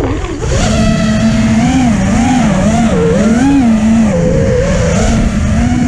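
FPV quadcopter's motors and propellers whining, the pitch wavering up and down as the throttle is worked, over low wind rumble on the onboard camera's microphone.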